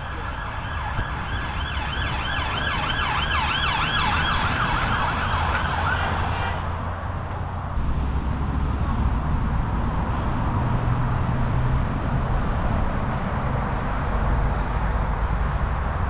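Emergency vehicle siren in a fast yelp, its pitch rising and falling a few times a second, cutting off suddenly about six seconds in, over the steady rumble of passing road traffic.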